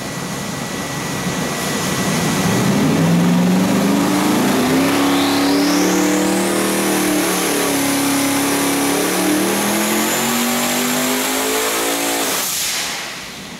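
Twin-turbo 427 LS V8 making a wide-open-throttle dyno pull at 18 psi boost. About two seconds in, the engine note starts climbing steadily in pitch. The turbos spool up with a rising whine that levels off into a steady high whistle. Near the end the throttle is chopped and the engine and whistle fall away sharply.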